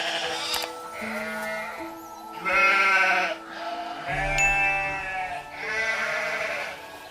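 Ibex, a wild goat, bleating: four separate wavering bleats about a second apart, over background music.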